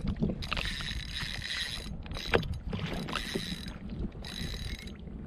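A spinning reel whirring in three bursts of about a second each while a hooked fish is played on a bent rod, with a single sharp click a little past two seconds in. Steady wind and water noise runs underneath.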